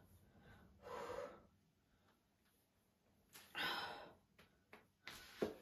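A woman breathing out heavily: a short sighing exhale about a second in and a longer one past the middle, with a quick sharp mouth sound near the end. She is holding her overfull, bloated stomach.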